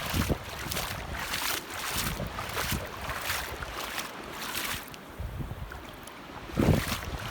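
Wind buffeting the microphone in uneven gusts over the wash of surf, with a hard buffet near the end.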